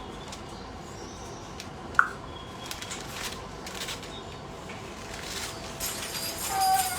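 Cage-liner paper rustling and crinkling as it is handled, in short scattered bursts. A sharp, brief chirp-like sound about two seconds in and a short pitched call near the end, typical of pet parrots in the room.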